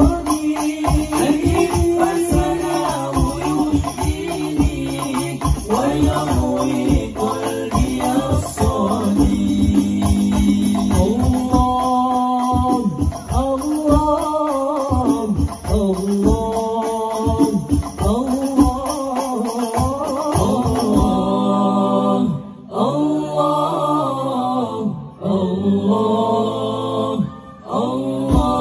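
Al-Banjari ensemble: male voices singing sholawat together into microphones over rapid, interlocking terbang frame-drum rhythms. About two-thirds of the way through, the drumming drops away and the voices carry on almost alone, with short breaks between phrases.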